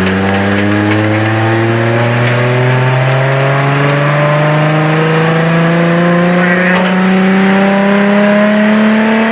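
Nissan RB20DET turbocharged inline-six in a 240SX pulling hard under full throttle, engine note climbing steadily in pitch through one long gear without a shift.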